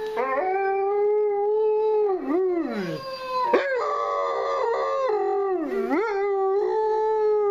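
Huskies howling in long, drawn-out howls that hold a steady pitch with brief dips. The first slides down and ends about three seconds in. A fresh howl starts just after and overlaps with a second voice for a moment.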